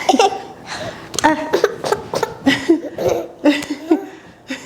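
Short bursts of wordless vocalizing and laughter, with a few sharp clicks in between.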